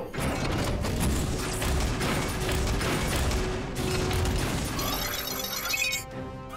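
Cartoon sound effects of a heavy armoured base opening up: its domed roof lifts and gun turrets swing out, with a dense run of mechanical clicks and clanks over a low rumble, under background music. Near the end this gives way to high electronic tones.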